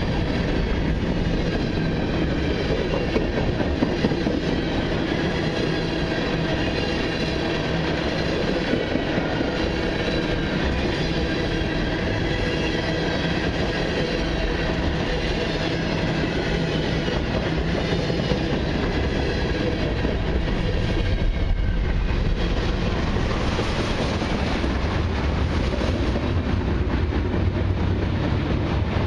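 Freight cars of a long mixed freight train rolling steadily past, steel wheels on rail clicking over the joints, with faint high squealing tones above the rumble.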